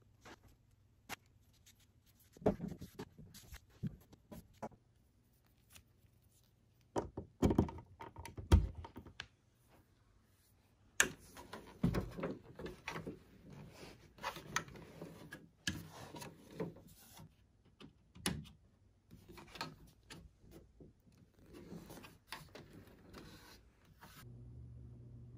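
Handling noise as an air purifier's power cord is uncoiled and plugged into the back of the unit: scattered knocks, thunks and rubbing against its plastic case, the loudest a few sharp knocks about 7 to 9 seconds in. Near the end a low steady hum starts.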